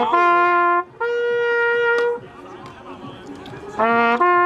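Valveless trumpet blown in long held notes. One note, then a higher note held for about a second, then after a short pause a quick rise from a low note up into another held note near the end.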